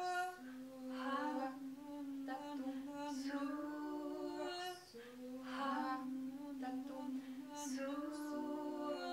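Women's voices singing a cappella in long, wordless held notes, two or more overlapping at close pitches and shifting every second or two, with breathy hissing sounds now and then.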